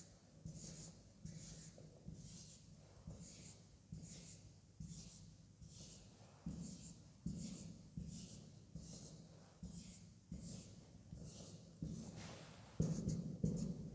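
Marker pen drawing on a whiteboard: a series of short strokes, about two a second, as small rivet circles are drawn one after another. The strokes get louder near the end.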